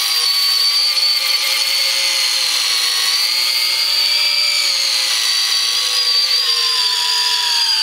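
Cordless drill spinning a small sanding pad against the curb-rashed lip of an alloy wheel, grinding down the damage. A steady high whine whose pitch dips a little now and then as the pad bears on the rim.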